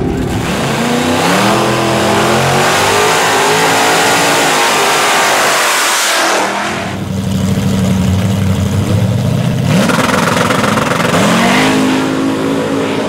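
Supercharged V8 of a Chevrolet Camaro drag car doing a burnout: the engine revs up with its spinning tyres hissing loudly for about six seconds. It then runs at a choppy idle and revs up again near the end.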